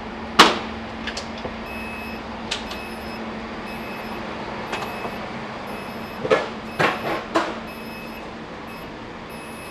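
Passenger train's door warning beeps sounding over and over, with a steady low hum from the standing train underneath. A loud knock comes about half a second in, and a few more clunks follow near the end.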